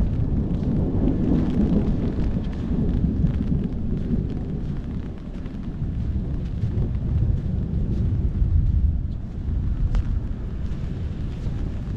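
Long, low rumble of rolling thunder in a rainstorm, with wind buffeting the microphone and a faint hiss of rain above it.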